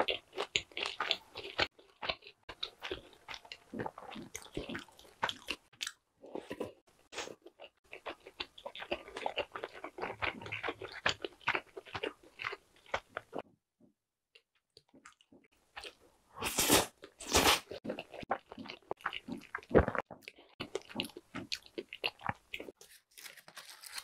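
Close-miked chewing of crisp food: crunchy bites and chewing come in two long runs, with a short pause and then a few louder single bursts in the last third.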